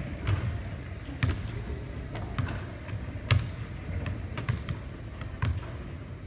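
A series of sharp knocks or thumps on a hard surface, irregularly spaced at roughly one a second, the loudest a little past three seconds in.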